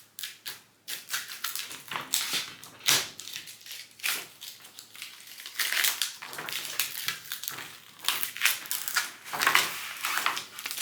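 Waste adhesive vinyl being peeled off its backing paper while a cut decal is weeded: irregular crackling and crinkling.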